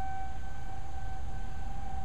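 Outdoor tornado warning siren holding one steady tone, over a low rumble.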